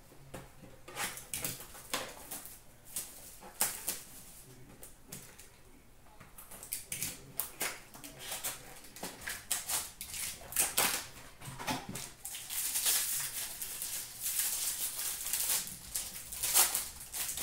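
Plastic wrapping of 2018-19 Upper Deck SP Game Used hockey card packs being torn open and crinkled by hand, a string of irregular crackles and clicks that gets denser about twelve seconds in.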